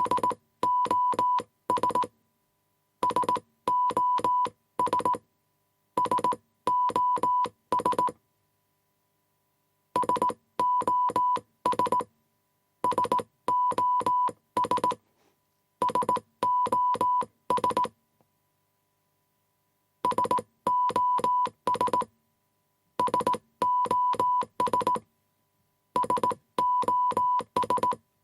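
Morse code beeps: a single steady tone keyed on and off in short and long pulses with crisp clicks at each edge. The pulses come in bursts of about two seconds, three bursts to a set, and the same set repeats about every ten seconds.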